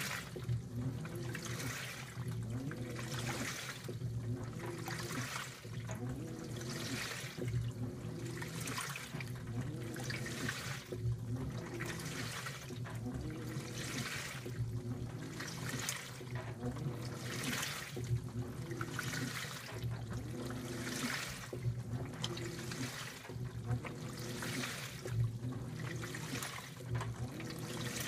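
A 2012 LG top-load washing machine agitating a heavy, wet load in its wash cycle. Water sloshes and churns in even surges a little more than once a second, over a steady motor hum, with a faint whine that rises and falls as the wash motion reverses each stroke.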